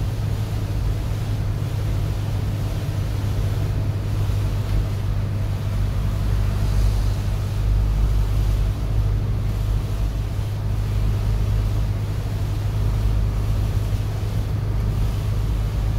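Steady low rumble of a vehicle driving on a rain-soaked highway, heard from inside the cab: engine drone with the hiss of tyres on the wet road.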